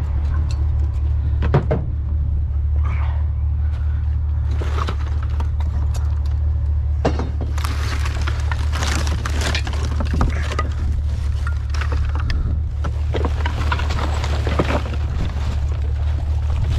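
Vehicle engine idling with a steady low rumble. Scattered knocks and clatter sound over it, with louder, busier stretches about halfway through and again near the end.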